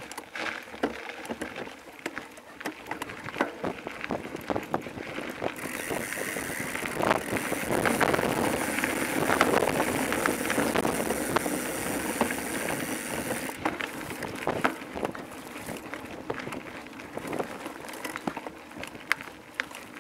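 Bicycle rolling over a rough dirt and gravel trail: tyres crunching and the bike rattling with many small clicks and knocks. A louder steady hiss comes in suddenly about six seconds in and cuts off about eight seconds later.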